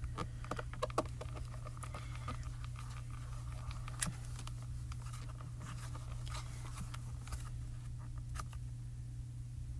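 Fingers pressing, rubbing and tapping on the clear acrylic door of a stamp positioning tool to press inked photopolymer stamps onto card: scattered light taps and soft rubbing, a few sharper ticks, over a steady low hum.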